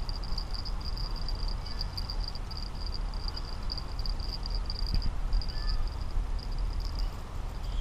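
High, rapidly pulsed insect chirping, several pulses a second and steady throughout, over a low rumble.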